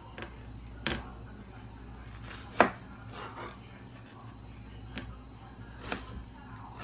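Kitchen knife chopping vegetables on a cutting board: a few sharp, unevenly spaced knocks of the blade against the board, the loudest about two and a half seconds in.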